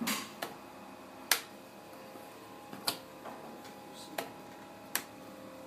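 Sharp clicks from the rotary switches on a button-setting machine's control panel being turned, about six of them spaced unevenly, over a faint steady hum.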